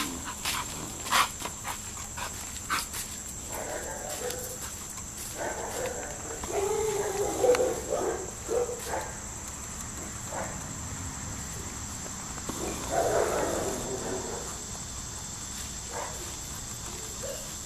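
A dog vocalizing in three spells: briefly about three and a half seconds in, in a longer stretch from about five and a half to nine seconds, and again around thirteen seconds.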